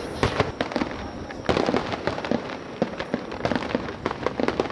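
Aerial fireworks going off: a rapid series of sharp pops and crackles, thickest about a second and a half in and again near the end.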